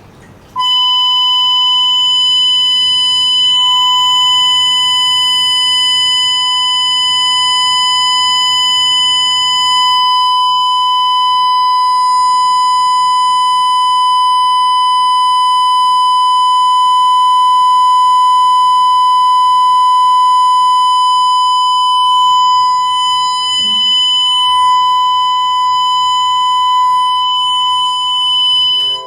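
Loud, steady electronic test tone played through speakers at very high volume. It is a single unchanging pitch with a harsh string of overtones, starts suddenly about half a second in and cuts off abruptly near the end.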